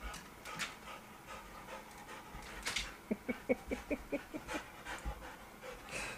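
Golden retriever panting, with a quick run of short breaths, about six a second, starting about halfway through.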